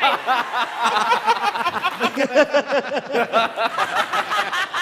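Many voices laughing at once in quick overlapping bursts, dense and high-pitched, used as a comic sound effect.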